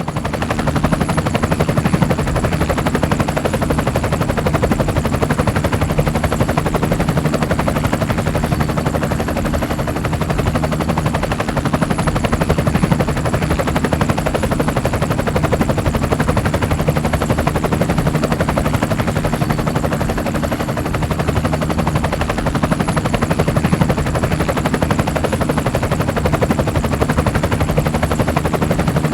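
Helicopter running steadily, its rotor blades chopping in a fast, even beat over a low steady hum, with a faint high whine on top.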